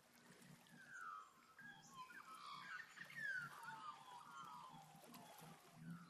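Several birds calling at once in a dawn chorus: overlapping, downward-sliding whistled calls and chatter, starting about a second in and fading just before the end.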